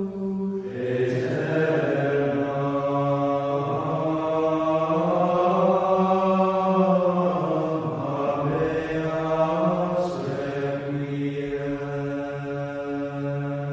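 Slow sung chant used as outro music: low voices holding long notes that step to new pitches every few seconds, with new phrases starting about a second in and again near ten seconds.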